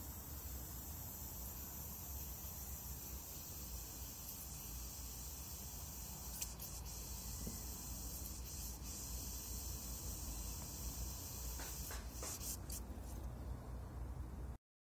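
Aerosol can of Sea Foam spraying through a red extension straw into a lawn mower's oil fill, a steady hiss, with a few light handling clicks.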